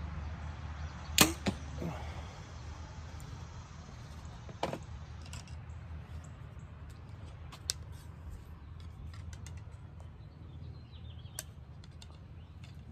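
A compound bow is shot: a sharp, loud snap of the string and cams on release about a second in, then a second crack a fraction of a second later. A single sharp knock follows a few seconds after, with a few faint clicks later on.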